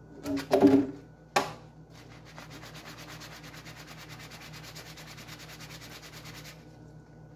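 Soapy sponge scrubbing a black slotted spoon with rapid, even back-and-forth strokes that stop about a second before the end. A few utensil knocks come in the first second and a half.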